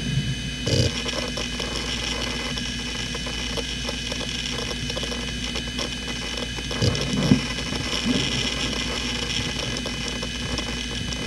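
Toshiba MK1401GRRB 15,000 RPM 2.5-inch SAS hard drive spinning with a steady whine while its heads seek, giving irregular ticking and short rattling bursts of disk access. The heaviest bursts come about a second in and again around seven to eight seconds in.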